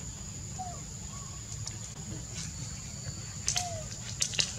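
Outdoor ambience: a steady high insect drone over a low rumble, with a few brief falling chirps and several sharp clicks, the loudest about three and a half and four seconds in.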